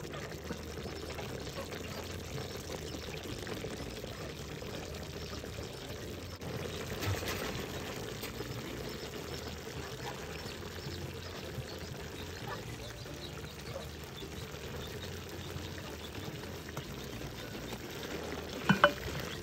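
Chicken stew simmering in a metal pot, liquid bubbling as a wooden spoon stirs through the pieces. Two sharp knocks near the end.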